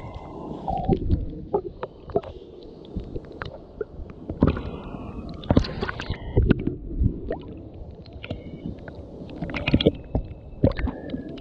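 Sea water sloshing and gurgling around a camera at the water's surface as it dips under and comes back up. The sound is a muffled low rumble broken by many small knocks and splashes, the loudest about halfway through and again near the end.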